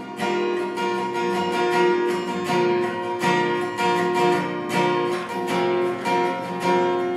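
Acoustic guitar strumming chords in a steady, even rhythm.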